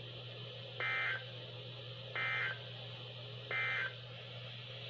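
Emergency Alert System end-of-message code: three short bursts of warbling digital data tones about a second and a half apart, over a low steady hum. They signal the end of the alert.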